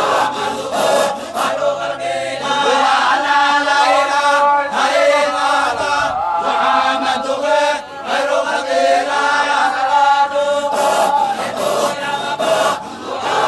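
A group of men chanting a Sufi dhikr together, a repeated sung phrase rising and falling in pitch.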